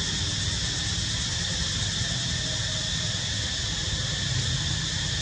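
Steady outdoor forest ambience: a continuous high insect drone over a low, even rumble, with no distinct events.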